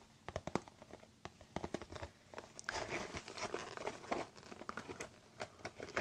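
Hand rummaging through an iridescent plastic makeup bag: crinkling of the bag with many small sharp clicks and rustles as the makeup items inside are moved about.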